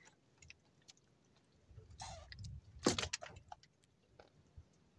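Scattered light clicks and knocks from a fisherman handling his handline and gear in a wooden outrigger boat, with a short rustle about two seconds in and the loudest, sharpest click just before three seconds.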